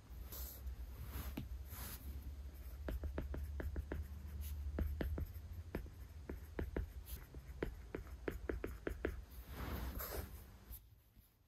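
Light, quick taps and scratching of small handling sounds, several taps a second from about three to nine seconds in, with a few softer brushing sounds before and after.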